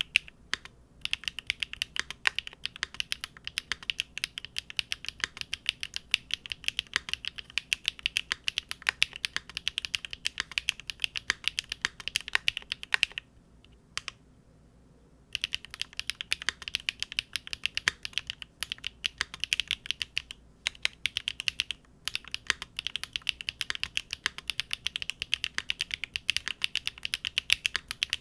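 Fast continuous typing on a Big Whale custom mechanical keyboard with GEON Raw Zero switches on a polycarbonate plate, the keystrokes giving quick, crisp clicks. The typing stops for about two seconds midway, then resumes.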